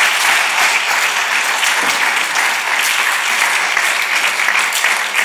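Large audience applauding: many people clapping steadily.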